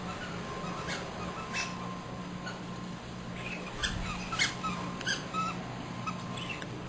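Squeaker in a plush frog toy squeaking as a Boston Terrier bites it: a series of short squeaks, most of them close together in the middle.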